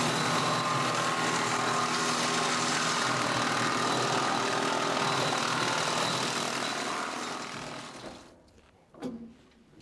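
Tractor engine driving a PTO wood chipper, running steadily, then fading out about eight seconds in. A couple of sharp knocks follow.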